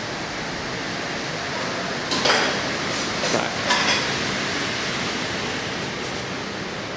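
Canteen room tone: a steady hiss, with a few short clinks of plates and crockery about two to four seconds in.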